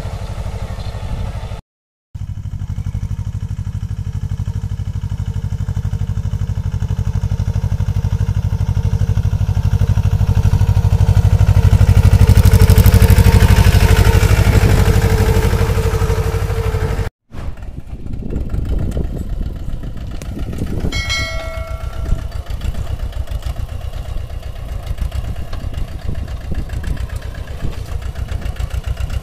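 Mahindra Jivo 245 DI compact tractor's two-cylinder diesel engine running under load as it pulls a plough through the soil, swelling to its loudest a little before the middle. The sound drops out to silence twice, about two seconds in and past the middle. A short ringing tone sounds late on.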